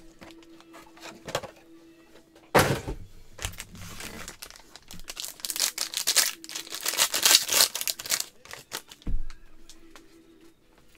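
Trading-card packs from a 2020 Panini Certified football box being torn open and their wrappers crinkled, with cards shuffled in gloved hands. There is a sharp crackle about two and a half seconds in, a busy stretch of crinkling and rustling in the middle, and a low thump near the end.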